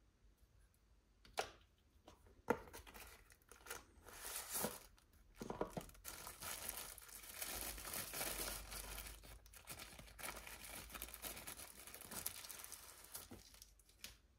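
Thin white protective wrapping crinkling and rustling as it is pulled off a gimbal, after two sharp clicks in the first few seconds.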